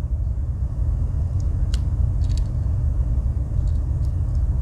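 Steady low rumble of background noise, with a few faint light clicks from a Swiss Army knife tool being handled.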